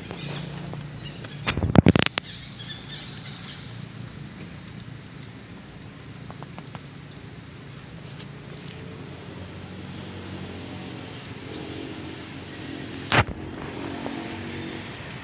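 Steady outdoor ambience with a high insect drone. About two seconds in, a brief loud clatter of knocks is the loudest sound, and near the end comes a single sharp knock.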